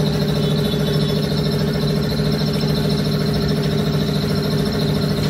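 A machine motor running steadily in a tyre shop, with a constant low hum and a high whine over it.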